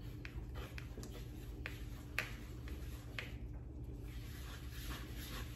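Spatula stirring egg whites into a flour mixture in a mixing bowl: faint scraping and light irregular taps against the bowl, over a low steady hum.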